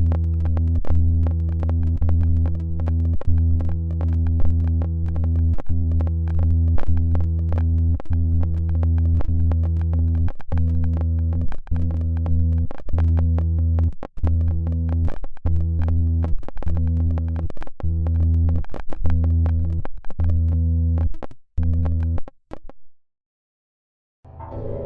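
Synthesizer music clip: a sustained low bass note under a fast run of sharp electronic hits, which breaks up and stops about 23 seconds in. After a second of silence, a new sound begins just before the end.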